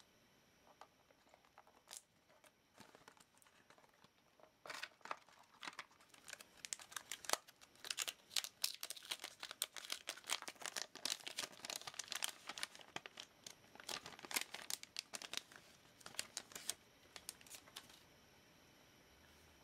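Plastic packaging crinkling as it is handled: a few faint crackles at first, then a dense run of sharp crinkles from about five seconds in that stops shortly before the end.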